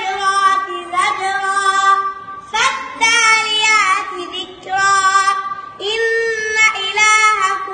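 A young boy reciting the Quran in melodic chant, his high voice holding and ornamenting notes in a string of short phrases with brief breaths between them.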